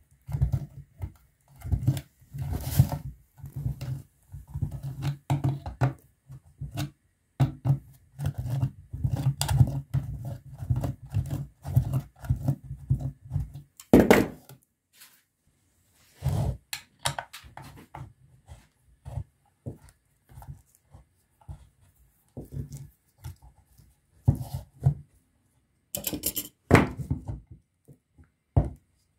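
Hand tools working a nut on the plastic housing of an old air-cooler water pump: irregular clicks, scrapes and knocks as pliers grip and twist it, dense through the first half. There is a louder knock about halfway through, sparser clicks after it, and a ring spanner on the nut near the end.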